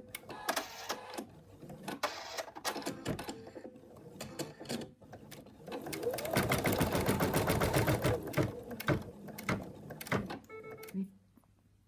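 Embroidery machine stitching, a rapid stream of needle strokes in uneven runs, loudest a little past the middle, then stopping shortly before the end.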